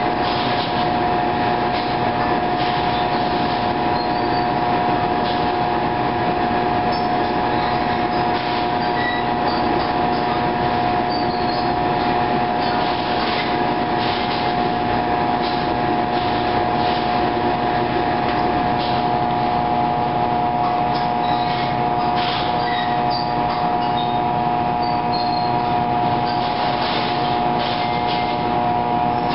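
Steady machine drone with a constant high whine holding one pitch throughout, with soft irregular rustling of cloth being pressed and rolled over a bamboo tray on top of it.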